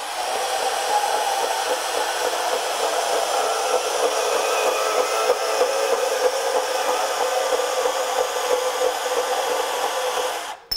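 Milwaukee M12 FUEL brushless compact band saw cutting through thick metal tubing with its 12/14 TPI thin-metal blade, running steadily under load without bogging down. The saw stops suddenly near the end as it comes through the cut.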